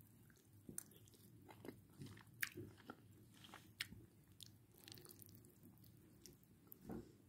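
Near silence with faint, scattered soft clicks and ticks, the loudest about two and a half seconds in.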